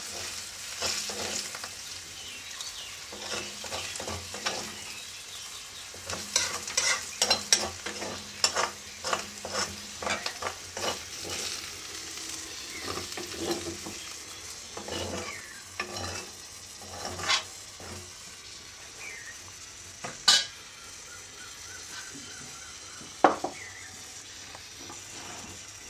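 Bitter melon sizzling as it fries in a wok, with a metal ladle stirring and scraping against the pan in quick strokes, then a few sharp knocks of the ladle as the vegetable is scooped out into a bowl.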